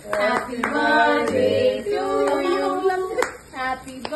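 A small group of people singing a birthday song together, with a few sharp hand claps scattered through it.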